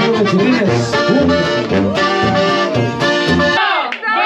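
Live band music from a party group, with acoustic guitar over a pulsing bass line. Near the end the bass and band stop and the crowd starts shouting and cheering.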